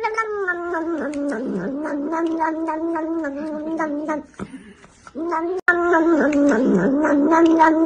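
A domestic cat giving long, drawn-out, wavering yowls: one call of about four seconds, a short break, then another long yowl.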